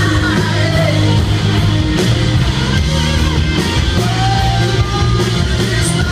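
Live rock band playing loud through a PA, full band sound with sustained guitar lines over bass and drums.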